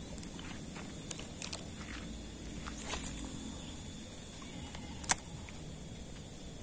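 Quiet riverside background with a few small handling clicks, a soft swish near the middle, and one short sharp click about five seconds in.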